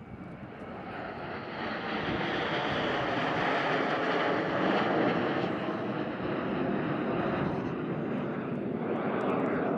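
Jet noise from PZL TS-11 Iskra jet trainers flying past. It builds from about a second in to its loudest around five seconds in and stays loud.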